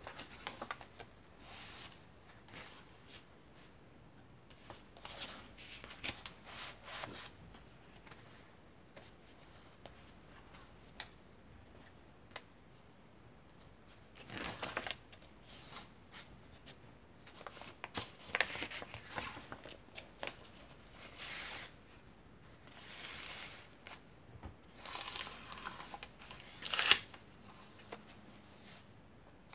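Pages of a thick handmade junk journal of vintage paper and fabric being turned and handled: dry rustling and crinkling of old paper in short spells with quiet gaps between. The loudest rustles come near the end.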